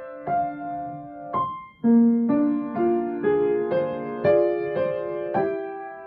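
Kawai grand piano playing a slow, gentle piece: struck notes and chords ringing on. About two seconds in there is a short break, then a line of notes follows at about two a second.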